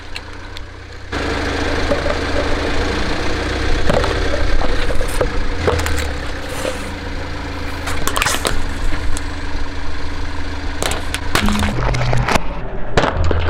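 A car engine running slowly as the tyre rolls over plastic bowls and toys, with plastic cracking and snapping several times under the weight.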